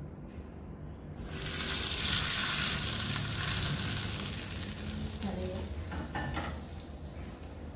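Hot oil poured from a wok onto raw sambal bawang ingredients in a stone mortar, sizzling loudly from about a second in and dying away over a few seconds. A few light knocks come near the end.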